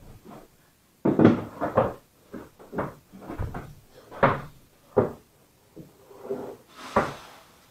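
A string of irregular knocks and clacks, about ten over several seconds, the loudest a quick cluster about a second in, from a motorcycle seat (foam on a hard plastic base) and a manual staple gun being handled on a wooden floor.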